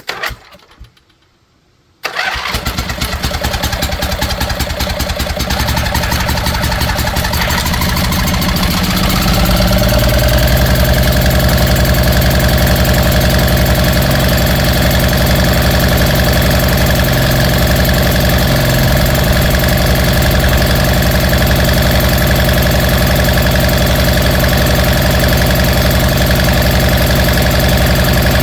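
Rebuilt Briggs & Stratton 23 hp Intek engine, running on damaged internals (a bent camshaft and a hole in the cylinder), starting up. A brief burst of sound comes at the very start. About two seconds in the engine fires and runs, rising in speed over several seconds before it settles to a steady run.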